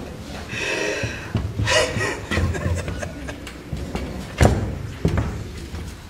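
A couple of short laughs in the first two seconds, then a single sharp thump about four and a half seconds in, ringing briefly in the hall.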